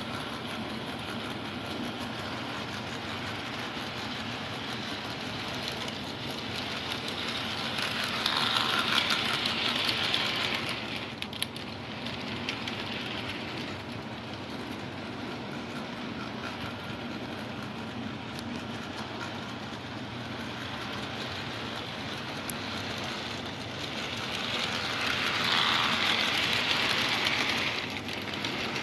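HO-scale Tyco model diesel locomotive and cars running on sectional track: a steady electric-motor hum with wheel and rail clatter. It grows louder twice, about 17 seconds apart, as the train comes round the loop close by.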